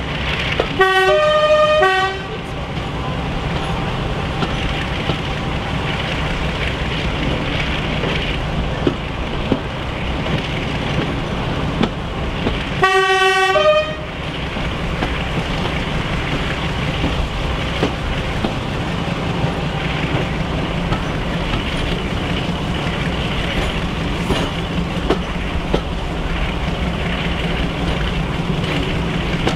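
Class 42 'Warship' diesel-hydraulic locomotive D821 sounding its two-tone horn twice, a low note then a high one, about a second in and again about thirteen seconds in. Between the blasts comes the steady running of the locomotive's Maybach engines and the train's wheels on the rails, heard from a carriage window.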